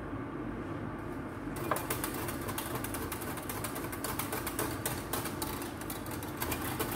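A spoon stirring in a container, with rapid irregular clinks and scrapes starting about a second and a half in, over a steady background hum.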